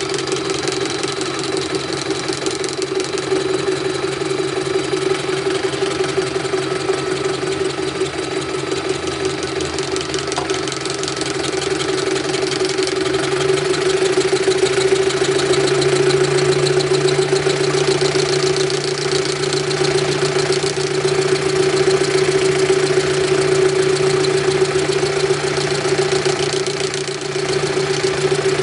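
Machine-tool motor, such as a drill press or drill-milling machine, running steadily with a constant hum. About halfway through it gets louder and a lower hum joins in.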